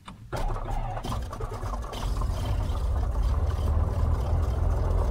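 Cessna 182's six-cylinder piston engine starting: it catches suddenly about a third of a second in, runs unevenly with stutters for a couple of seconds, then settles into a steady idle.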